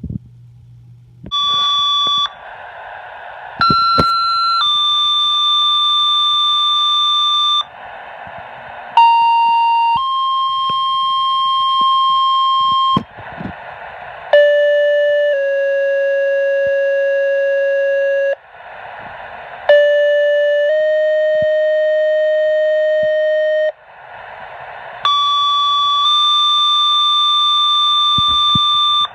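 Two-tone sequential fire-pager alert tones received over a police scanner: a series of steady tone pairs, each a short tone of about a second stepping to a different, longer tone of about three seconds, with a burst of radio static between pairs. Each pair is the code that sets off one department's pagers in the daily pager test.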